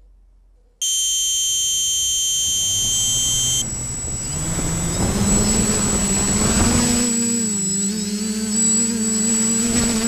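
A TBS Discovery Pro quadcopter's electric motors and propellers spin up from rest, their hum rising in pitch over about four seconds to a steady buzzing drone as the craft lifts off the ground. A thin high whine runs alongside. At the start, the Pixhawk flight controller's buzzer sounds a steady high arming tone for about three seconds, then stops.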